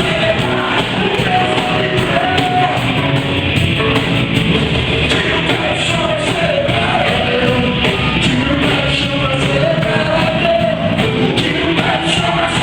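Live church worship band playing an upbeat song with drums and amplified instruments, with a singer carrying the melody, echoing in a large hall.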